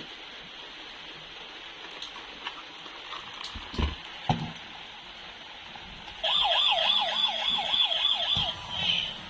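A few light handling knocks, then about six seconds in a toy vehicle's electronic siren switches on: a fast warbling wail sweeping up and down about three to four times a second.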